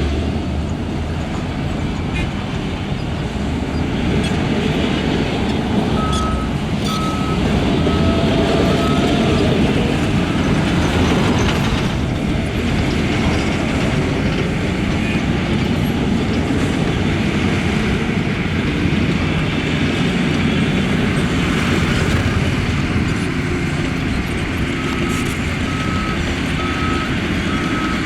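Heavy diesel earthmoving machinery running steadily, with a reversing alarm beeping in two spells: about six seconds in for roughly three seconds, and again near the end.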